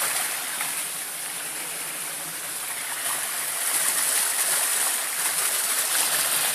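Steady rush of running water: a two-tier garden pond's recirculated flow spilling over its waterfall into the lower pool.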